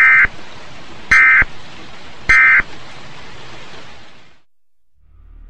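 Three short screeching data bursts of an Emergency Alert System (SAME) end-of-message code, sent about a second apart at the close of a National Weather Service tornado warning broadcast, over a steady hiss that fades out about four seconds in. Low music begins near the end.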